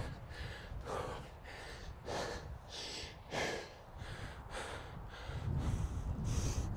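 A man breathing heavily and fast after a hill sprint, about one hard breath a second, picked up close on a clip-on microphone. From about five seconds in, a low rumble of wind or rubbing on the microphone joins in.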